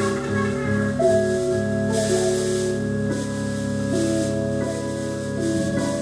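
Live post-jazz/experimental band playing: held, overlapping pitched notes that shift every second or so, over drums with a cymbal wash.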